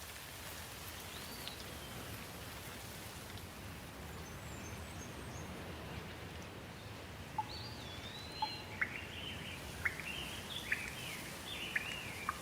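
Steady rain hiss with birds calling over it: one whistled call early, then from about halfway a busy run of quick chirps and whistles.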